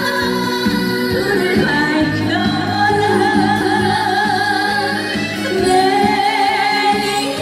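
A song with a singer over instrumental backing, holding long notes with a wide vibrato.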